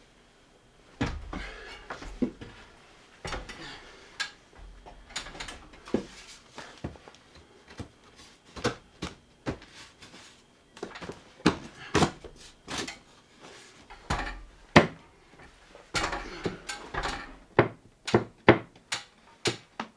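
Irregular knocks, clicks and light metallic clinks of hand tools and boards being handled during carpentry, with a few heavier wooden thumps, about a second in and again near three quarters of the way through.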